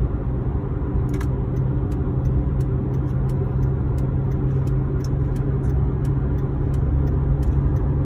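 Steady road and engine rumble heard inside the cabin of a moving car.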